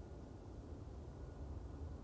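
Faint, distant rumble of a Boeing 777-212(ER)'s twin jet engines as it begins its takeoff roll, slowly growing louder, with a thin high whine coming in about a second in.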